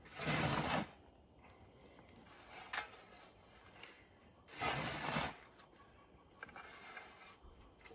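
Shovel scraping into a pile of wood chips twice, about four seconds apart, each a short rasping scoop, with fainter crunches of chips being handled in between.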